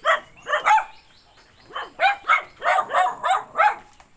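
Dog barking in quick, sharp barks: a few at first, then after a pause of about a second a faster run of six or seven more.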